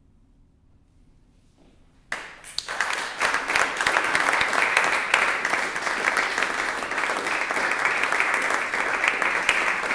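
Near silence for about two seconds, then an audience bursts into applause that quickly builds and keeps going: many hands clapping.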